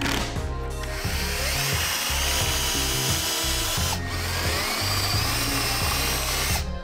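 Milwaukee M12 cordless drill boring holes into a plywood drawer, in two runs: one from about a second in, the next starting about four seconds in. Each run has a whine that rises in pitch, and the drill stops just before the end.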